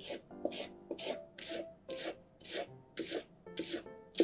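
Kitchen knife slicing a Japanese long onion (naganegi) into thin diagonal slices on a wooden cutting board. It is a steady run of short, crisp slicing strokes, about two a second.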